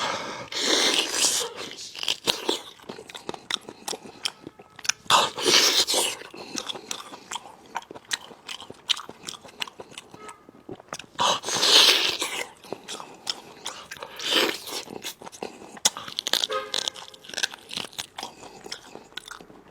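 Close-up crunching and chewing of braised spicy lamb chops, with several louder crunchy bites and many small clicks.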